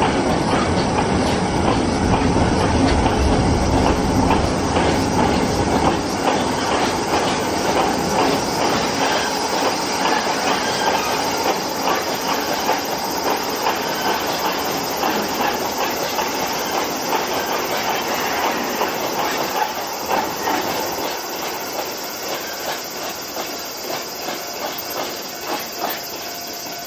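Chichibu Railway freight train of steel hopper wagons rolling past at low speed, wheels clicking over the rail joints with some wheel squeal. The sound is loudest in the first few seconds and grows fainter as the wagons move away.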